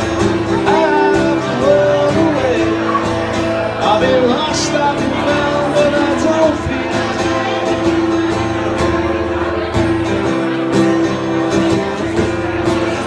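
A man singing live while playing an acoustic guitar.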